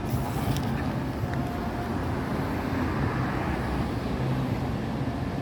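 Steady rumble of road traffic with a low hum.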